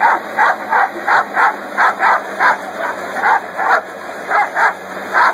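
A dog barking rapidly, about three short sharp barks a second, over the steady rushing hiss of a leaf blower whose air it is biting at.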